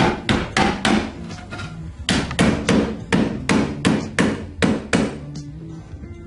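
Hammer striking wooden cabinet parts, about three sharp blows a second in two runs with a short pause around two seconds in, as pieces are knocked together during cabinet assembly.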